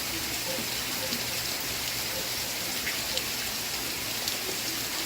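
Steady rain falling, an even hiss with a few sharper drops ticking now and then.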